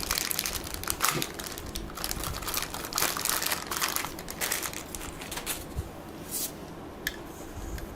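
Packaging crinkling and rustling in irregular bursts as a vacuum part is unwrapped and handled, with a few light clicks and knocks.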